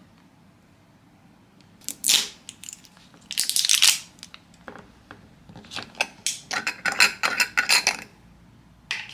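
Metal screw lid of a glass jar being twisted open by hand: a short scrape about two seconds in, a longer grinding rasp a little later, then a quick run of clicks and taps.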